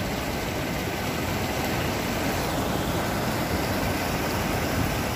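Water pouring over a low weir and churning into white foam below: a steady rush of falling water.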